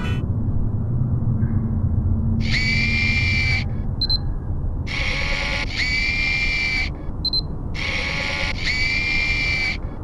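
Logo-animation sound effects: a low rumble under three bright electronic swells, each lasting about a second. The first two swells are followed by a short high beep.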